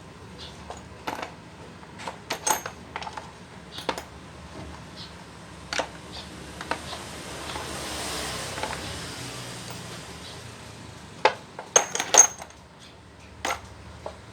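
Small steel jackhammer parts being handled, clinking and knocking against each other and a hard surface in scattered single taps, with a quick cluster of louder clinks near the end. A soft hiss swells and fades in the middle.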